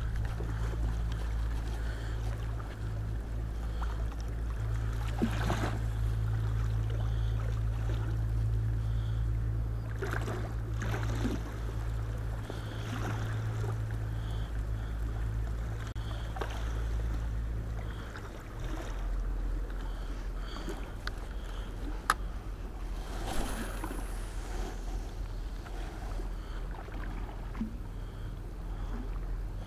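A boat engine's low, steady drone, which shifts to a lower note about 18 seconds in, with faint scattered clicks and swishes over it.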